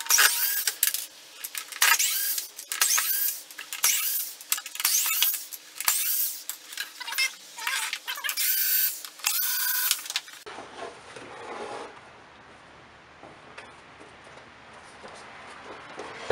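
Power drill backing screws out of a plastic blower fan housing in about a dozen short runs, each a quick rising whine, over roughly ten seconds. The drill then stops and only faint handling rustle remains.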